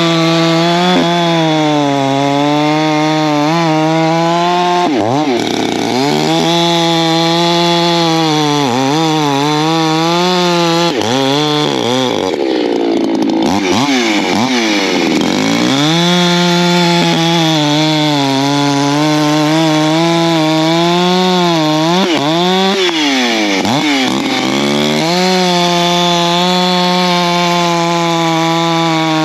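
Ported Echo CS-620 two-stroke chainsaw bucking firewood, held at high revs with its pitch dropping and climbing back several times.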